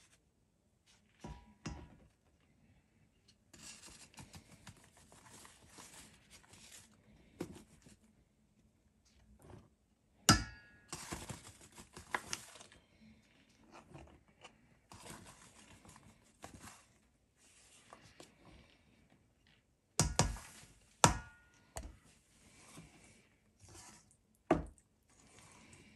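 Plain flour poured by the cupful into a stainless steel mixing bowl, each pour a soft rushing hiss lasting a second or more, broken by a few sharp metallic knocks against the bowl. Near the end a metal spoon stirs the flour into the oil and water.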